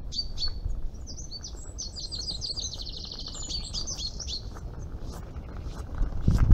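A small songbird singing a fast twittering song with a rapid trill in the middle, over a low steady rumble. Near the end a louder low rumble as the loaded barrow rolls past close by on the gravel path.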